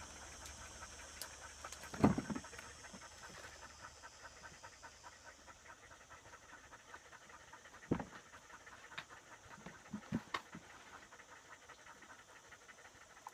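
A dog panting quickly and steadily, with a few short knocks, the loudest about two seconds in.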